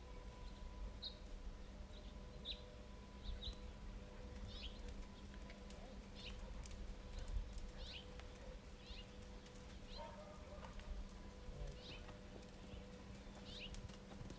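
Faint small-bird chirps, short high notes that drop in pitch, repeating irregularly about once a second, over a low steady rumble and a faint hum.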